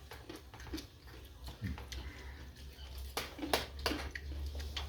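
Scattered light clicks and clinks of dishes and eating at a meal, several close together in the second half, over a low steady hum.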